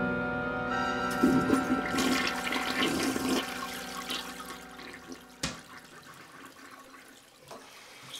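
Toilet flushing, the rush of water fading out over a few seconds, under background music holding long notes. A single sharp click about five and a half seconds in.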